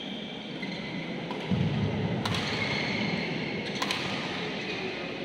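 Badminton rackets striking the shuttlecock twice, sharp cracks about a second and a half apart, during a rally in an echoing hall. A low rumble swells about a second and a half in, and thin high squeaks or tones sit underneath.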